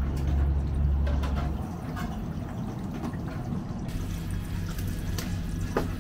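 Crepe stand kitchen sounds: a steady low machine hum with light handling noises as whipped cream is squeezed from a large bag. A single sharp knock comes near the end.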